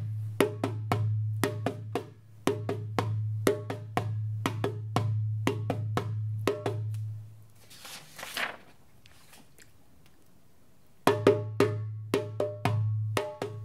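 Tam-tam hand drum beaten in a quick repeating rhythm, a deep drum tone ringing under the strikes. About eight seconds in the drumming stops for a brief rattling swish and a short pause, then starts again.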